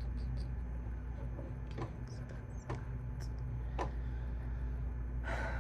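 Steady low hum under a few isolated clicks from a computer keyboard, three about a second apart, then a brief rustle near the end.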